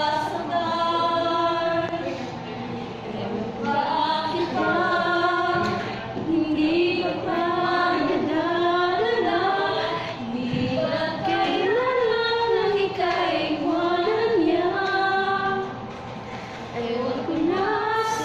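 A group of voices singing a slow harana serenade, a Filipino courtship love song, in long held phrases with brief breaks between them.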